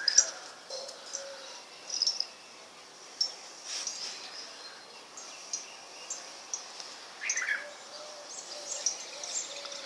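Birds chirping: short, high chirps scattered irregularly, with a few fainter lower calls among them.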